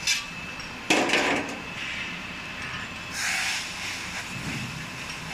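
Ice cream cone baking machine working: a loud metal clatter about a second in as the mold head comes down onto the batter tray, then a short hiss about three seconds in.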